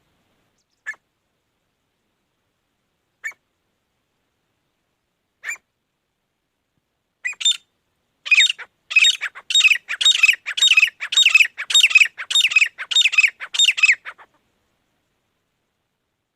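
Grey francolin calling: three single short notes a couple of seconds apart, then a loud run of quickly repeated calls, about two a second, that stops about fourteen seconds in.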